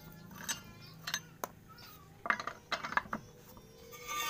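A wrench working on a car wheel's lug nuts: a series of sharp, irregular metallic clicks and knocks.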